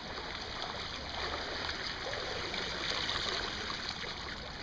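Steady splashing and churning of water from a swimmer doing front crawl.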